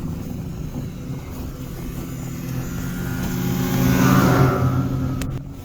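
Snowmobile engine running as the machine passes close by, growing louder to its peak about four seconds in, then falling away quickly near the end.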